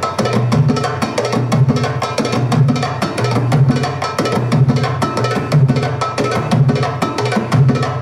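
Middle Eastern drum solo music for belly dance: fast, steady hand-drum strokes on a goblet drum (darbuka) over a low beat repeating about twice a second.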